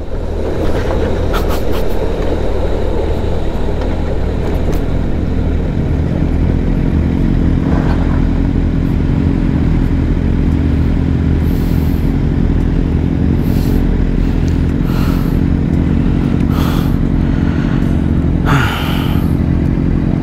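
Superbike engine running steadily at low speed while the rider is on the move. Several brief noises come over it in the second half.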